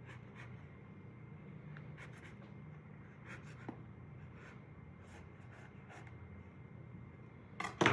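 Spoon scraping passion fruit pulp out of the opened shell, a series of soft short scrapes, with a couple of sharper knocks near the end.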